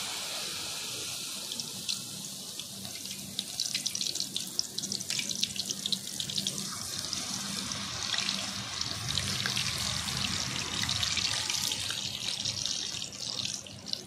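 Besan-battered water lily stems deep-frying in hot oil: a steady sizzle full of crackling pops, growing busier about three seconds in and again after about eight seconds.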